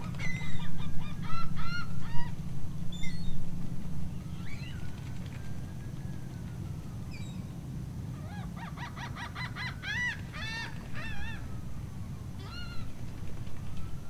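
A flock of waterbirds calling: many short, repeated calls in two bursts, one near the start and a denser one about two-thirds of the way through, over a steady low rumble.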